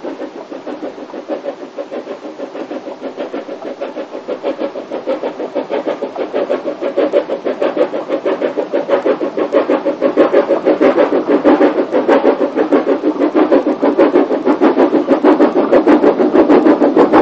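Small oil-fired 0-4-0 tank steam locomotive (the 1916 Avonside Woolwich) chuffing along an 18-inch gauge line, its quick, even exhaust beats getting steadily louder as it approaches.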